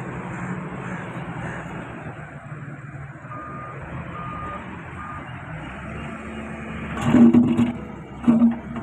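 Excavator diesel engine running steadily, with three short beeps of a backup alarm around the middle. About seven seconds in come loud clanking and rattling knocks of the machine at work.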